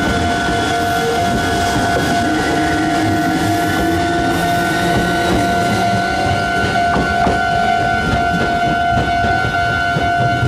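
Meitetsu Panorama Super electric train running past slowly on curved track, with wheel-on-rail rumble and knocks from the rail joints. A steady high tone sounds throughout, and a fainter whine rises in pitch from about three seconds in.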